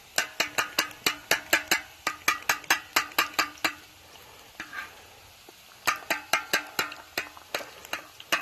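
Eggs being beaten with a fork in a bowl: quick clinking strokes, about five a second, in two runs of a few seconds with a short pause between.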